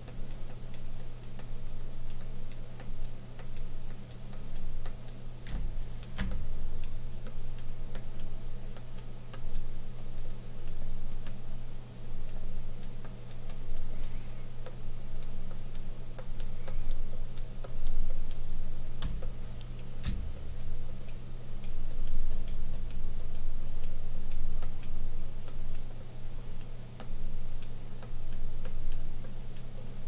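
Light ticking and a few sharper clicks, about six seconds in and twice around nineteen to twenty seconds, over a steady low hum.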